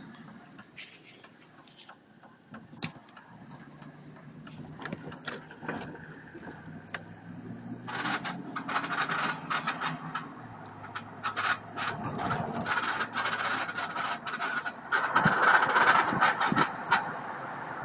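2003 Chevy Tahoe rattling while being driven: quick, irregular rattles and clicks over a low steady drone, getting busier and louder about halfway through. It is the rattle that appears in the first half mile of driving and then goes away.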